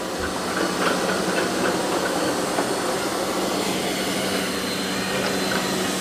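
Two robot vacuum-mops, a Roborock Q Revo and a Eufy X10 Pro Omni, running while cleaning carpet and floor: a steady rushing suction noise over a low steady hum, with a few faint ticks.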